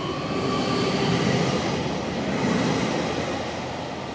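JR Hokkaido 733 series 3000-subseries electric train pulling away from the platform: the whine of its Mitsubishi IGBT VVVF inverter, with pitched tones rising slightly, over the rumble of the wheels on the rails. The sound grows fainter over the last second or so as the train draws away.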